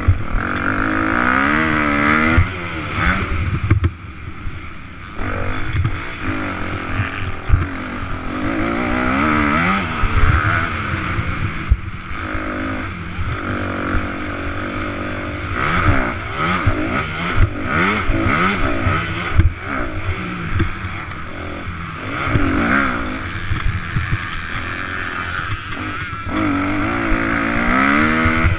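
Motocross bike's engine at race pace, revving up and dropping off again and again as the rider accelerates, shifts and backs off, with sharp knocks scattered through it as the bike hits bumps. Heard close up from the rider's own onboard camera.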